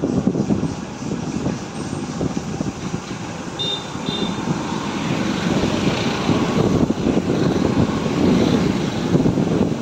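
Steady engine and road noise of a vehicle driving slowly through traffic, heard from on board. Two brief high tones come about four seconds in.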